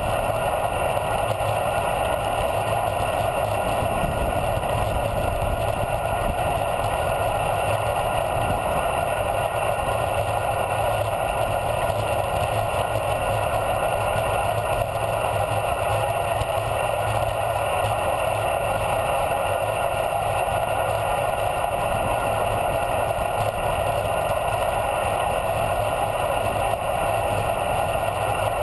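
Steady wind rush over the camera's microphone, mixed with tyre and road rumble, as a bicycle coasts fast downhill on asphalt.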